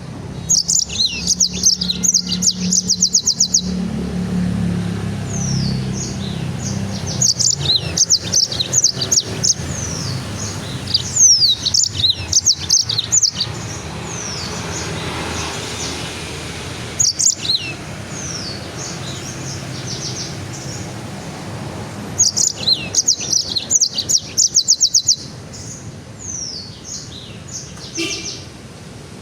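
A caged songbird singing in bursts of rapid, high, sweeping chirps and trills, each burst a few seconds long with short pauses between, over a steady low rumble.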